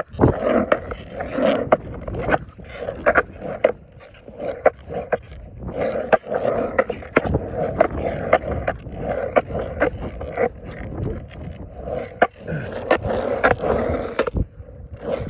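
Skateboard rolling on pavement, its wheels giving a steady rolling noise, with repeated sharp clacks as the board is turned back and forth in tic-tacs and the wheels drop back onto the ground.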